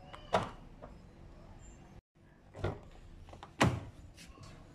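Front door of a 2010 Kia Forte SX being opened by its exterior handle: a sharp click as the latch releases about a third of a second in, then two more clunks from the door, the second one as loud as the first.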